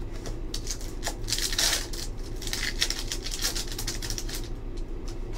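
Crinkling and tearing of a shiny foil hockey card pack wrapper being ripped open by hand, with cards sliding against each other, in a run of irregular crackles over about three seconds.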